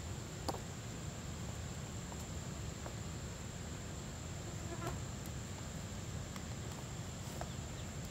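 Steady high-pitched insect drone, with a few faint knocks as large fruits are shifted in a woven basket.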